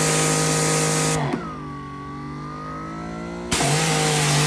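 Greenworks Pro 3000 psi electric pressure washer's brushless motor and pump running with the trigger pulled, a loud spray hiss over a steady whine. About a second in the spray cuts off and the machine keeps running, quieter, its whine gliding in pitch, since it does not shut off when the trigger is let go. Near the end the spray comes back on.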